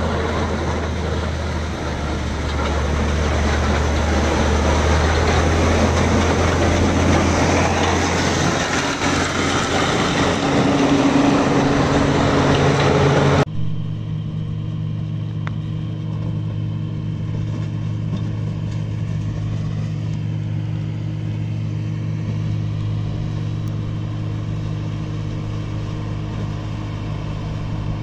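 Motor grader's diesel engine running, loud and rough, with a rising tone a little before the middle as it works harder. After an abrupt cut about halfway through, it settles into a quieter, steady engine hum.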